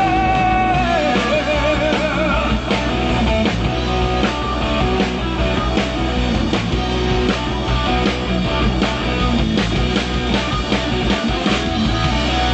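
Band playing rock music with guitar and drum kit: a sung note held with vibrato for the first two seconds or so, then the instruments carry on with a steady drumbeat.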